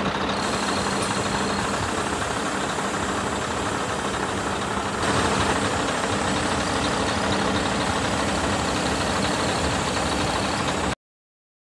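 Scania R620's 16-litre V8 diesel engine idling steadily, a little louder from about five seconds in; the sound cuts off abruptly near the end.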